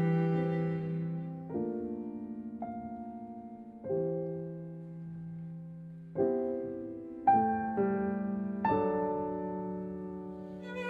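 Slow solo piano music: chords struck one after another, a second or more apart, each left to ring and fade.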